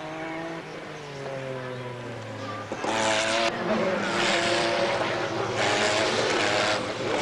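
Group C sports-prototype race car engines. For about three seconds a distant field of cars drones with slowly falling pitch. Then it turns much louder as car after car passes close at speed, engines running hard with a rush of tyre and wind hiss.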